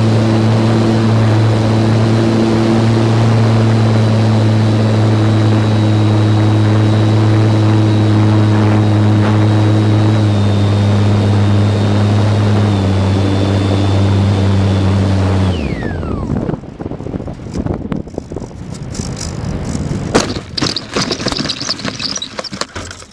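Electric motor and propeller of a GWS Slow Stick RC plane, heard close up from a camcorder mounted on the plane, running steadily with a high whine. The pitch steps down twice as the throttle is eased, then the motor cuts off about fifteen seconds in and the pitch falls as it winds down. Irregular knocks and rattles follow.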